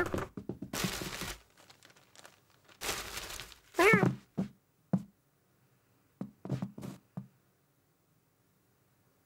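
Cartoon cat sound effects: rustling and scrabbling as the cat clambers over an armchair, a short chirping cat call about four seconds in, then a few soft thumps.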